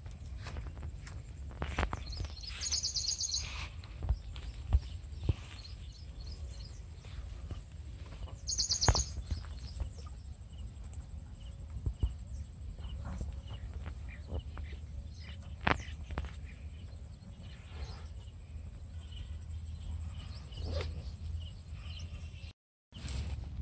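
Outdoor ambience with a steady low rumble and scattered clicks and knocks, broken twice by a short, rapid bird trill.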